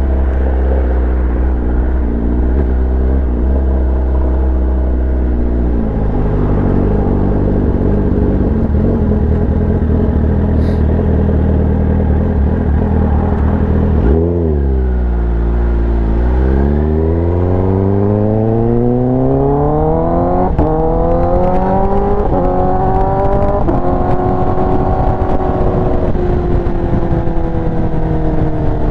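Kawasaki ZX-10R inline-four engine through an aftermarket SC-Project exhaust, running at steady revs, then dropping sharply about halfway through before the revs climb steadily for around eight seconds and ease off slightly near the end.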